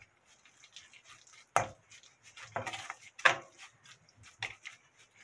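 A spoon stirring a chili-flake seasoning paste in a stainless steel mixing bowl: scattered scrapes and clinks of the spoon against the steel, the sharpest about one and a half and three seconds in.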